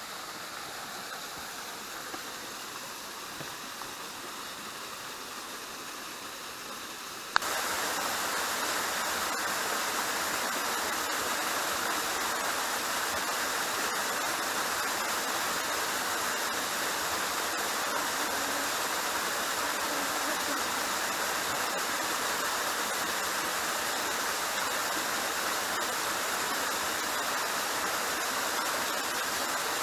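Waterfall rushing steadily, an even wash of falling water. About seven seconds in it jumps abruptly louder and then stays steady.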